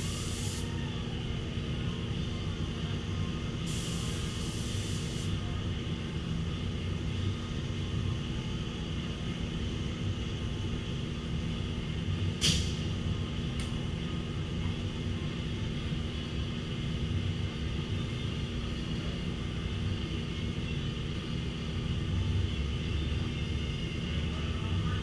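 Steady low mechanical running, with a short hiss a few seconds in and a sharp click about halfway.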